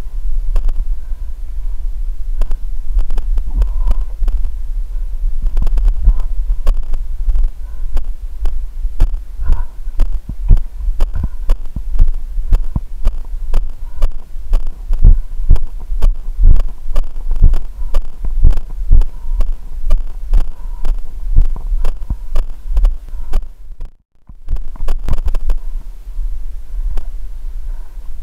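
Running footfalls jolting a body-worn camera: dull thumps about two to three a second over a steady low rumble of microphone handling and wind. The sound cuts out briefly about four seconds before the end.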